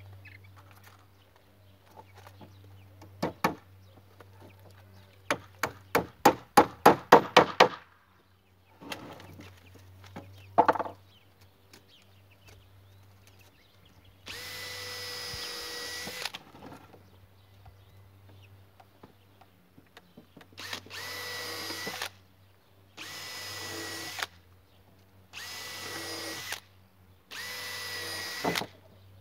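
Wood being hammered: a single knock about three seconds in, a quick run of about ten blows a few seconds later, and one more knock near eleven seconds. After that a power drill runs with a steady whine, first for about two seconds, then in five short runs of about a second each, spaced roughly two seconds apart.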